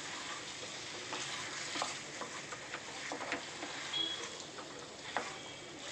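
A spatula stirring and tossing chicken pieces coated in chilli and turmeric powder in an aluminium pressure cooker, scraping against the pan with scattered clicks over a steady frying sizzle as the masala coats the meat.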